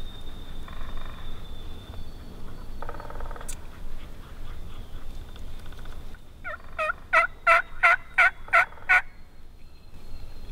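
Wild turkeys: two faint rattling gobbles about one and three seconds in, then a louder run of about eight turkey yelps, about three a second, between six and nine seconds in.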